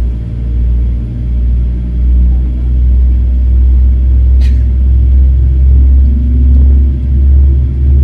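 Boeing jetliner engine running: a loud, steady low rumble with several steady tones above it. There is a short click about four and a half seconds in.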